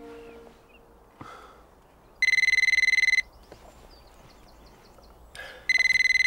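Telephone ringing: two trilling rings about a second long, one about two seconds in and another near the end.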